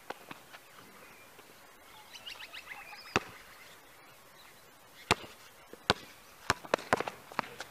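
Basketball bouncing on an outdoor asphalt court: a few sharp single bounces spaced unevenly, then a quicker run of bounces near the end.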